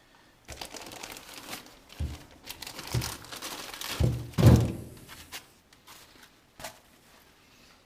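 Unpacking: plastic packaging crinkling, with several dull thunks as the parts are handled and set down. The loudest thunk comes about four and a half seconds in, and it goes quiet near the end.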